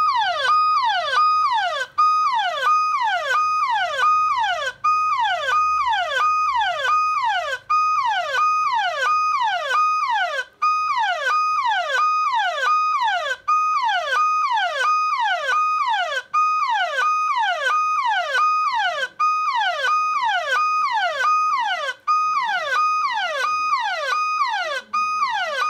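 Anti-theft alarm app on a Samsung Android phone sounding through the phone's speaker, set off by the phone being picked up. A repeating electronic siren tone: each cycle holds a high note and then drops sharply in pitch, about three cycles every two seconds, going on without stopping.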